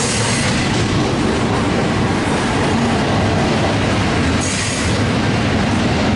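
Union Pacific double-stack intermodal well cars rolling past: a steady, loud noise of steel wheels on rail, with a brief faint high squeal about four and a half seconds in.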